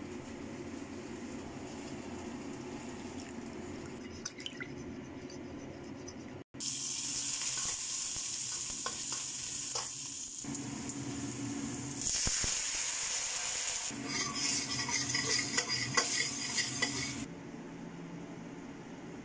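Garlic and shallots sizzling in oil in a wok, stirred with a metal spatula that scrapes and clicks against the pan. The sizzling starts abruptly about six seconds in and stops about seventeen seconds in; before and after it there is only a low steady hum.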